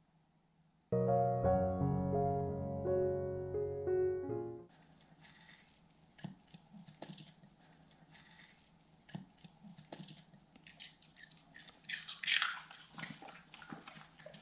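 A short piano jingle plays for about four seconds. It is followed by faint scattered clicks and rustling as a miniature pinscher shifts about on a soft blanket, busiest shortly before the end.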